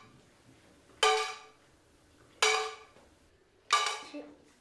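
Small objects dropped one at a time into a tin can: three clinks about 1.3 seconds apart, each ringing briefly and fading, with a softer tap after the third. The drops are made to be counted by ear.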